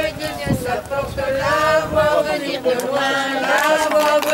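Folk music over a drone: one steady held note with a melody moving above it. Voices mix in.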